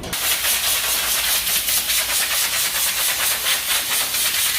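Compressed-air gun blowing dust out of a car's air filter: a loud, steady hiss that starts abruptly.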